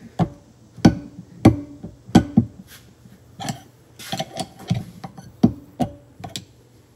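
Steel screwdrivers clicking and scraping against a ball bearing and the steel ring gear beneath it as they are worked in and levered to pry the bearing off a differential hub: a dozen or so sharp, irregular metallic clicks, some ringing briefly.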